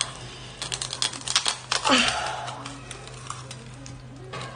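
Sea urchin shell cracking and crunching between teeth as it is bitten open, a quick run of sharp cracks about a second in. Just after the cracks comes a short grunt of effort that falls in pitch, and then a few faint crackles of shell and spines.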